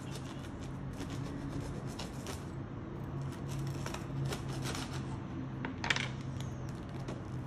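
A knife cutting through the crisp, sesame-covered crust of a baked barbari loaf, making a run of crackles and crunches. There is one sharper crack about six seconds in.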